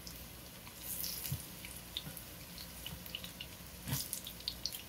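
Sliced ripe plantains frying in shallow vegetable oil in a skillet: light, scattered crackles and ticks of the hot oil. A knife moves the slices about in the pan, with a sharp knock of the knife against the pan about four seconds in.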